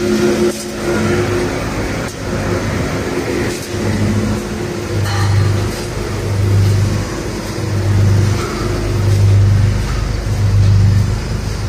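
V-S45 cable granulator machine running: a steady heavy machine din with a low hum that swells and fades in a slow, regular pulse, more strongly in the second half.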